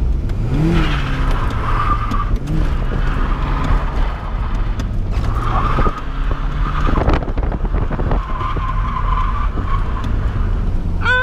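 Nissan 240SX's KA24DE four-cylinder engine revving as the car slides through a drift, its rear tires squealing in several stretches across the pavement. The revs climb about half a second in.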